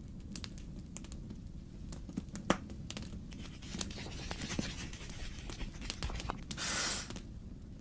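Pages of an old book rustling and turning, with scattered papery crackles and clicks over a low steady rumble, and a longer swish of a page turning near the end.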